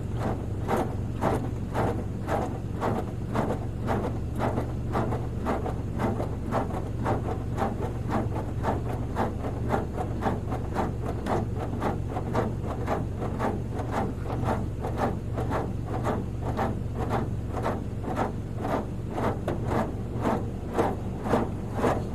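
Automatic car wash machine spraying the car: water jets striking the car in rapid, even pulses, about two to three a second, over a steady low hum from the machine.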